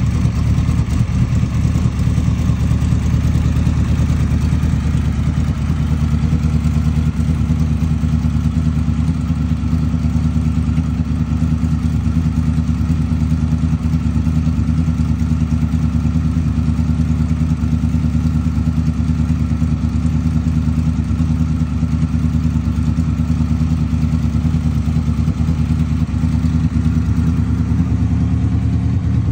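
2002 Honda VFR800's V4 engine idling steadily through a Delkevic full aftermarket exhaust, warming up after a cold start.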